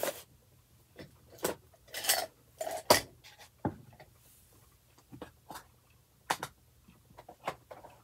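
Small hard craft supplies clicking and knocking together as they are rummaged through and set down on a desk: a string of separate, irregular knocks, the loudest about three seconds in.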